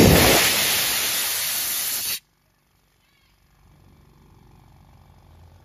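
A loud hiss of compressed air escaping from the telolet horn's air compressor and tank, cut off suddenly about two seconds in; after that only a faint low background noise.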